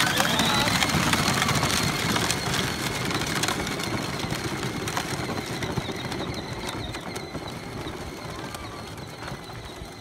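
Peg-Perego Polaris electric ride-on quad pulling away in its fast setting: a motor whine that rises at the start, with the tyres rolling over dirt. The sound fades steadily as the quad drives off.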